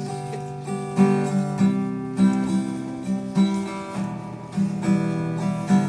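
Acoustic guitar strummed in a steady rhythm, chords struck about every half second, as an instrumental song intro before the singing comes in.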